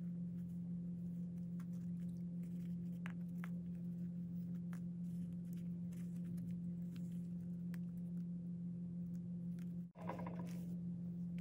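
Paper stickers being shuffled through by hand: faint scattered rustles and small taps over a steady low hum, with a brief louder rustle near the end.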